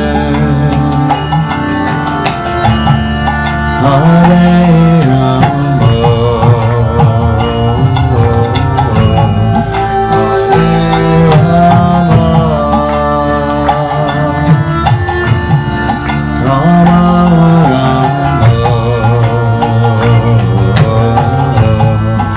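Kirtan music: a harmonium playing sustained chords and melody, with a two-headed mridanga drum beating a steady rhythm.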